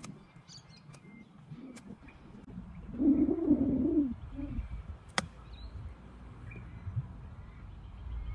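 A single crisp click of an iron striking a golf ball on a short chip shot, a little after five seconds in. Just before it a bird gives a low cooing call, the loudest sound here, and small birds chirp faintly near the start.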